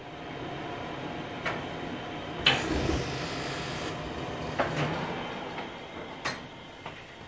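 Oven door being opened: a few sharp clicks over a steady rushing noise, with a louder hiss lasting about a second and a half near the middle.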